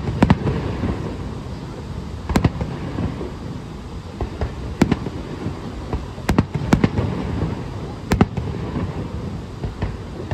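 Aerial firework shells bursting with sharp bangs, about half a dozen at uneven intervals, some in quick pairs, over a steady low rumble.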